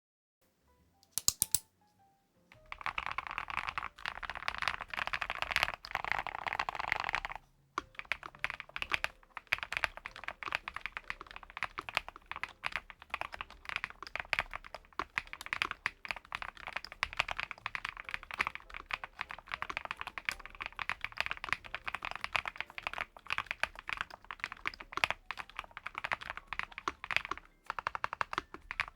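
Typing on an ATK VXE V75PRO gasket-mounted mechanical keyboard with PBT double-shot keycaps: fast, continuous keystrokes beginning a couple of seconds in, with a brief pause about a quarter of the way through.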